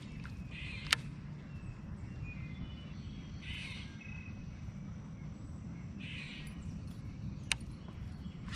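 A bird gives short, harsh calls about three times over the steady low rumble of wind on the microphone, with two sharp clicks.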